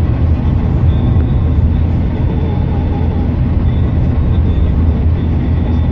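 Steady low rumble of a vehicle's engine and tyres at cruising speed on an asphalt road, heard from inside the cabin.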